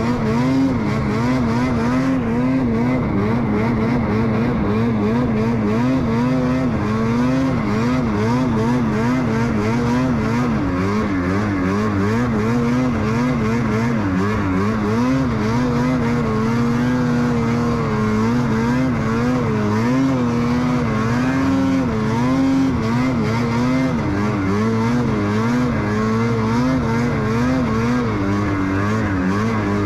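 Ski-Doo snowmobile engine running hard under throttle, its pitch rising and falling again and again as the rider works the throttle through the snow.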